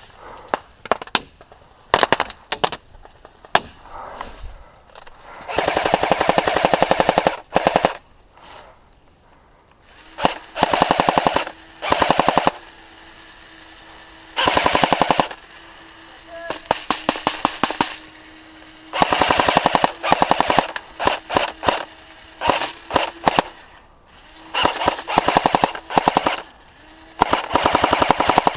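Airsoft rifles firing: a few single shots at first, then repeated rapid full-auto bursts of one to two seconds each through the rest of the exchange.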